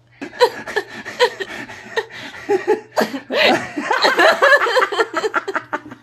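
A man and a woman laughing hard together over a video call, in rapid repeated bursts that swell loudest about three to five seconds in.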